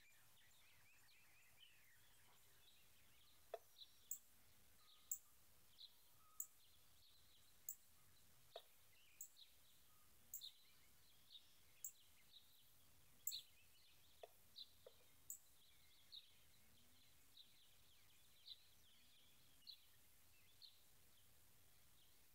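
Faint, sharp, high chip calls of a male northern cardinal, repeated at irregular intervals about once a second, with a few soft knocks among them.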